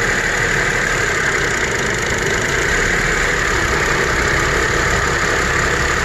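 2005 GMC Envoy's 4.2-litre inline-six engine idling steadily, misfiring on cylinder number 3.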